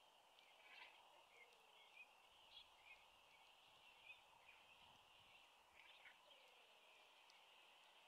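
Faint outdoor ambience: a steady high-pitched background hiss with scattered short chirps of small wild birds.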